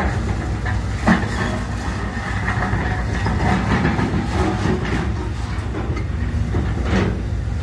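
Heavy demolition machinery running steadily, with a continual clatter and knocking of a house being torn down. Sharper knocks come about a second in and near the end.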